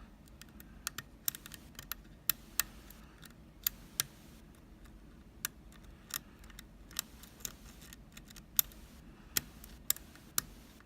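Lock pick working the pin tumblers of a FAB euro cylinder lock: irregular sharp metallic clicks and ticks, about two a second, as the pins are lifted and set under tension.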